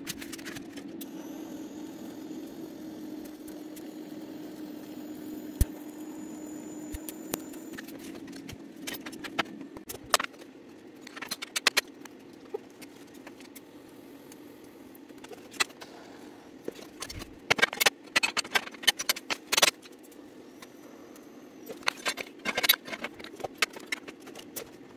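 Steel clamps and metal parts clinking and knocking on a perforated steel welding table as a weld is set up, in scattered clusters of sharp metallic clicks. A steady low hum runs under the first part and fades.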